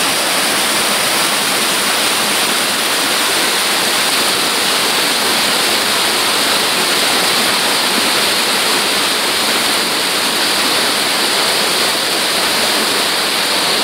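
Mountain stream rushing over smooth bedrock slabs and small cascades: a steady, loud rush of water.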